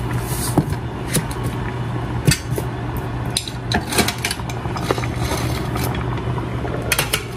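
Irregular light clicks and taps of cookware handling around a pan of cut tomatoes on the stove, over a steady low hum.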